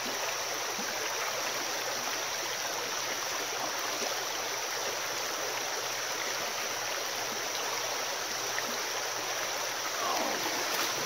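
Shallow creek water flowing steadily over rocks.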